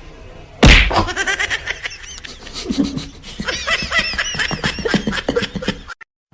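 A loud knock or thump under a second in, followed by several seconds of high-pitched laughter in quick repeated bursts.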